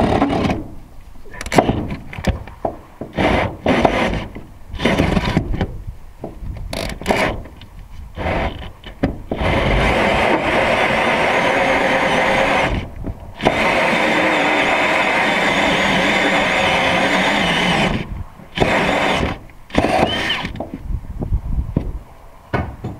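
Cordless power drill boring a hole through wood framing. It runs in short bursts at first, then in two long steady runs split by a brief stop, then a few more short bursts near the end.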